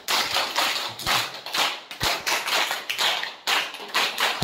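A roomful of people applauding, hand claps merging into a pulsing patter of roughly four beats a second.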